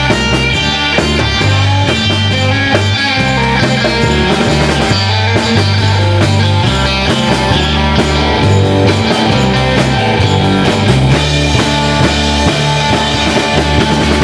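Live rock band playing an instrumental rock-and-roll tune: electric guitar over a driving bass line and drum kit, steady and loud.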